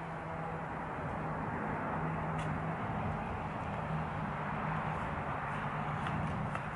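Portable gas canister camping stove burner running with a steady rushing hiss and a low hum, easing slightly near the end as the valve is turned down.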